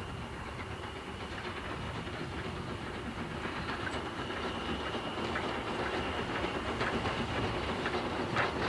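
LSWR O2 0-4-4T steam tank locomotive approaching with its train, growing gradually louder, with a steady hiss of steam. Sharp clicks of wheels over rail joints come more often near the end.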